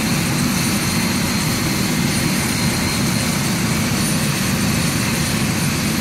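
Steady, loud low engine drone that does not change.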